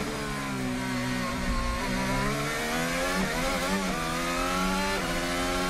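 Onboard sound of a Red Bull RB14 Formula 1 car's 1.6-litre turbocharged V6 hybrid engine, picked up by the car's own microphone. The engine note drops as the car brakes and downshifts for a chicane, then rises through the gears in a series of upshifts as it accelerates away.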